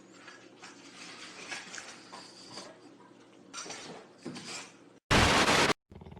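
Faint rustling and light clattering, like small dishes or utensils being knocked, then a loud burst of even, static-like hiss lasting about half a second near the end, which cuts off sharply.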